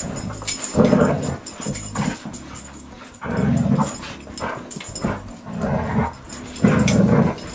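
Labrador retrievers play-fighting, with repeated short, low growls roughly once a second.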